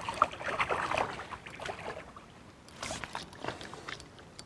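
Water splashing and sloshing in two irregular spells as a hooked fish is drawn into a landing net at the water's edge.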